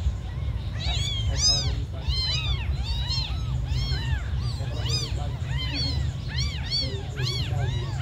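Several newborn kittens mewing: thin, high cries that each rise and fall in pitch, overlapping at about two a second, starting about a second in.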